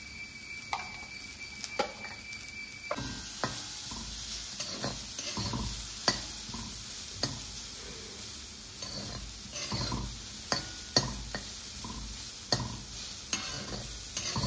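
Sliced breadfruit with shallots and green chillies being stirred in hot oil in a cheenachatti (wok-style pan), the spoon scraping and knocking against the pan many times. A frying sizzle comes in about three seconds in.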